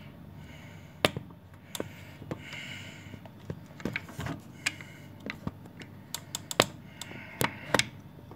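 Handling noise from a camera being adjusted in its mount close to the microphone: irregular clicks, taps and knocks, the loudest about a second in.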